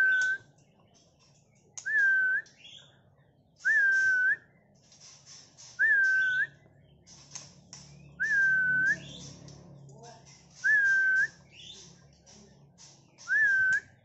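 White-rumped shama singing: one clear whistled note, rising at the start, held level and flicking up at the end, repeated seven times about every two seconds, with scratchy high chirps between the whistles.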